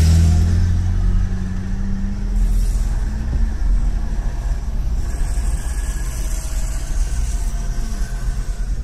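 Car engine and road noise heard from inside the cabin of a slowly moving car. A low engine note is strong at first and eases off over the first two seconds or so, then a steady drone continues.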